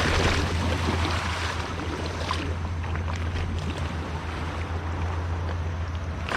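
Seashore ambience: wind and surf noise with a steady low rumble underneath.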